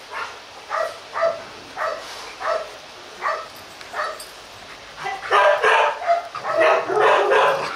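Rottweilers barking: short single barks spaced about half a second to a second apart, then louder, rapid barking from about five seconds in.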